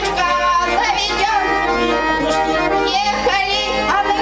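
Garmon (Russian button accordion) playing a chastushka tune in steady chords, with a woman singing high over it.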